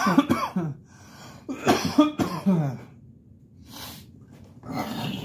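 A man coughing hard in several bouts a second or two apart: the chesty coughing fit of someone who is ill.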